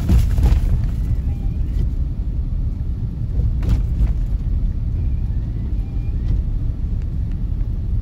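Car cabin rumble while driving over a rough, rutted, ice-packed snow road, with sharp jolts as the wheels drop into the ruts: one right at the start and two close together a little before the middle.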